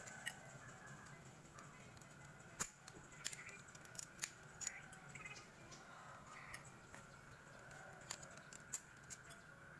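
A screwdriver tip clicking and scraping against the brush holders of a dismantled radiator fan motor's brush plate, working at the carbon brushes: scattered sharp ticks, the loudest about two and a half seconds in.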